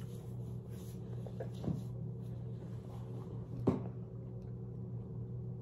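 Steady low hum of room tone with a few soft knocks, the loudest about two-thirds of the way through.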